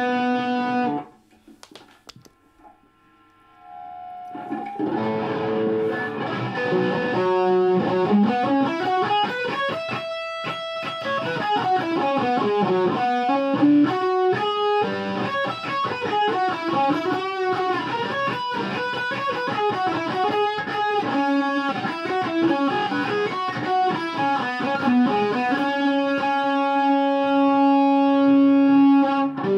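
Electric guitar played through a BOSS SD-1 Super OverDrive pedal. A held note cuts off about a second in and there is a pause of about three seconds. Then the pedal is switched on and the guitar plays overdriven riffs with runs climbing and falling, ending on a long held chord.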